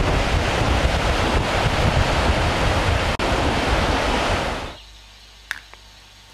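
Surf breaking on a beach with wind buffeting the microphone, a loud, steady rush of noise. It cuts off suddenly a little before the end, leaving a much quieter background with a few faint short sounds.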